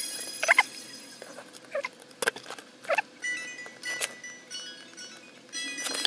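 About half a dozen light, separate taps and scrapes as a small circuit board and soldering tools are handled on a fibreboard bench, over faint steady high-pitched tones.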